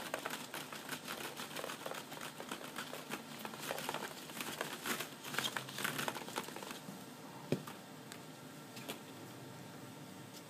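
Quick crinkling and light clicking from plastic ball-pit balls and the nylon fabric of a pop-up play tent, disturbed by a sheltie puppy and a cat moving through them. The rustling is dense for about seven seconds, then two isolated clicks.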